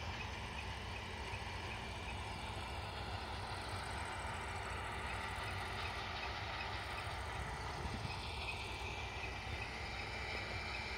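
New Holland CX740 combine harvesters working at a distance: a steady machine drone with a faint, constant high whine.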